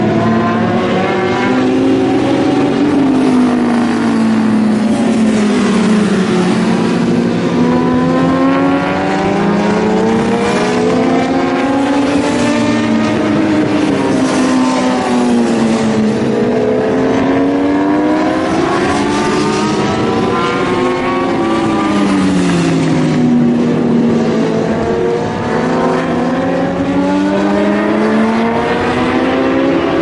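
Several endurance-racing motorcycles running hard on track, their engine notes overlapping. The pitch rises and falls again and again as they accelerate and slow for corners.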